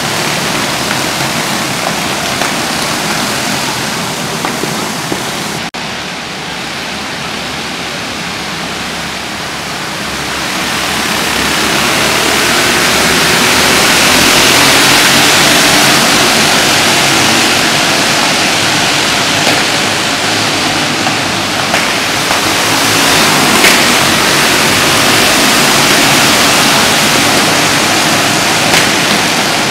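A pack of racing karts' engines running together at speed, heard as a dense, steady din inside an indoor arena, growing louder about a third of the way in.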